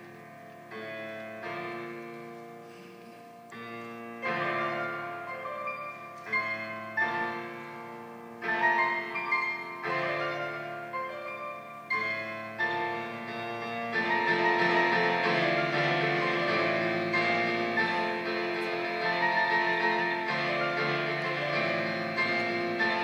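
Piano playing an instrumental interlude of struck chords about once a second, growing louder and filling out into a fuller, continuous sound about fourteen seconds in.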